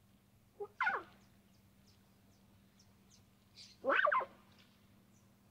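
Lion cubs mewing: two short calls, a quick one about a second in and a longer one about four seconds in.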